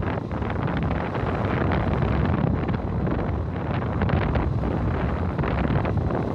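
Wind buffeting the microphone of a moving motorcycle, over the steady running of the Yamaha FZS FI V2's single-cylinder engine.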